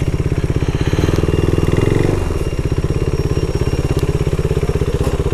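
Motorcycle engine running at low revs with a fast, even pulsing exhaust beat, swelling slightly about a second in.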